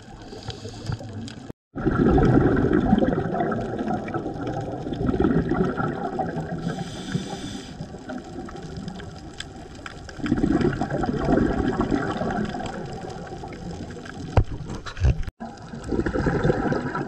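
Muffled underwater sound with loud surges of bubbling every few seconds, the exhaust bubbles of a scuba diver's regulator. The sound drops out for an instant twice where the footage is cut.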